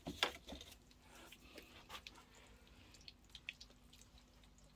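Faint scattered clicks and light taps, the loudest right at the start, over a low steady hum.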